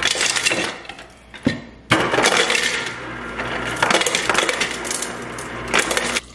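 Refrigerator door ice dispenser dropping ice into a studded tumbler: a loud clattering rattle that thins out about a second in, picks up again just before two seconds and stops abruptly near the end.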